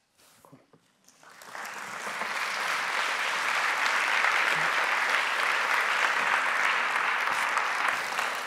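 Audience applauding. A few scattered claps about a second in swell into steady clapping that holds to the end.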